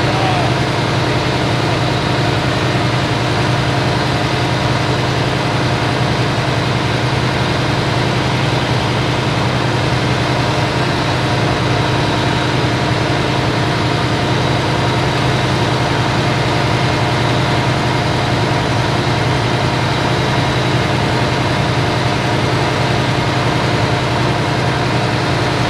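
Large farm tractor's diesel engine idling steadily, a constant even drone with no change in speed.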